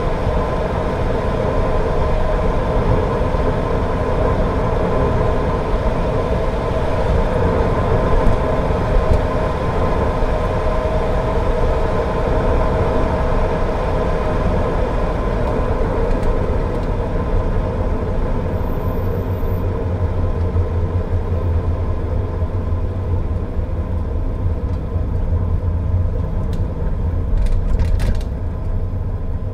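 Car driving on a rain-wet road: a steady rumble of engine and tyres, with a few faint clicks near the end.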